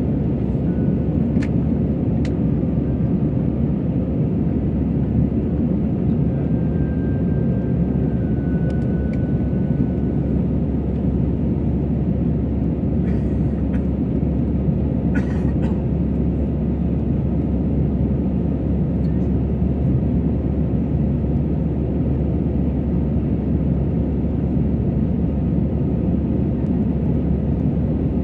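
Steady cabin noise of an Airbus A320 climbing out: engine noise and rushing air heard from a window seat inside the cabin, with a few faint clicks.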